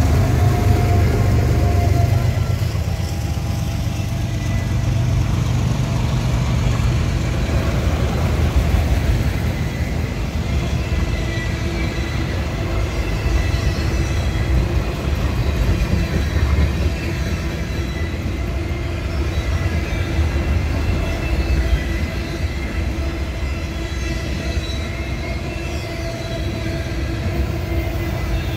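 CSX freight train passing close by. The last diesel locomotive's engine drones for the first two seconds or so, then comes the steady rumble of autorack and tank cars rolling over the rails.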